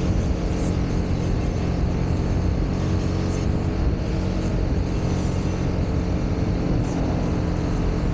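Motorcycle engine running at steady revs, with wind noise rushing over the microphone.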